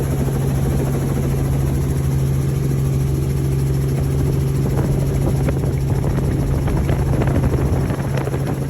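Steady, loud engine drone: a constant low hum over a fast, low pulsing, with a few faint ticks from about halfway through.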